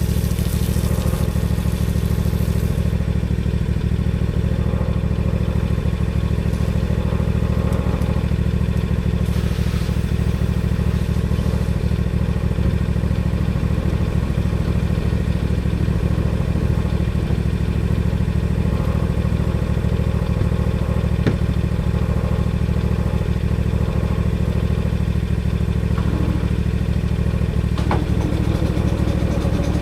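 Lawn mower engine running steadily at constant speed while cutting grass.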